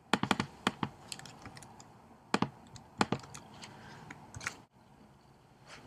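Computer keyboard keystrokes: a quick run of key presses just after the start, then single strokes and short runs spaced out over the next few seconds, as an address is typed into a browser.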